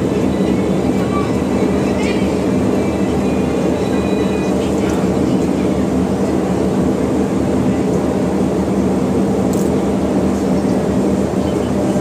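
Passenger ship's engines droning steadily with a constant low hum under a loud, even wash of noise.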